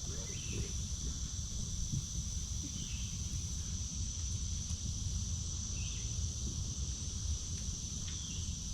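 Insects, crickets or the like, keeping up a steady high-pitched buzz, over a constant low rumble. A few faint short chirps come through now and then.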